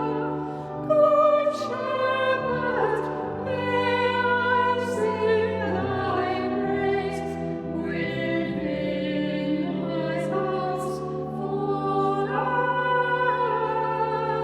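Slow sacred music: a singing voice holding long notes, with vibrato, over a keyboard accompaniment.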